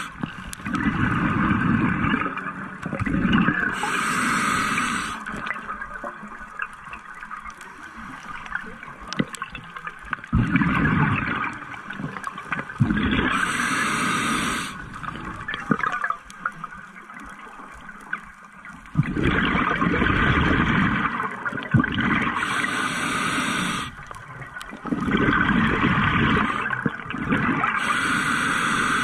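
Scuba diver breathing through a regulator underwater: loud bursts of gurgling, rushing exhaust bubbles, each a second or two long, come about every few seconds. Some are followed by a short hiss. There are longer quiet stretches a little after the first third and around the middle.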